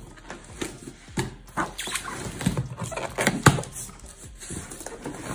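Cardboard shipping box being opened by hand: flaps scraping, rustling and knocking in irregular bursts, with a couple of louder knocks a little past three seconds in.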